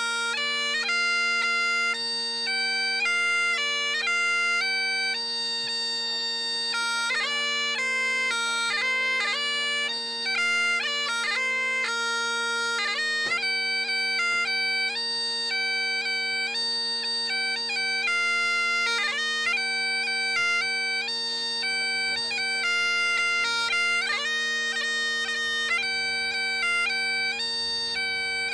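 Highland bagpipes playing a tune: a melody moving quickly from note to note with short grace-note flicks over two steady, unbroken drones an octave apart.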